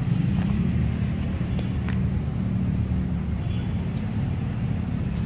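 Steady low rumble of nearby road traffic and vehicle engines, with a few faint ticks.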